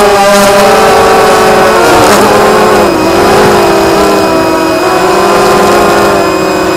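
Mini FPV quadcopter's brushless motors whining at high speed, the pitch sliding up and down as the throttle changes, with a dip about two to three seconds in. Heard from the onboard camera with wind noise.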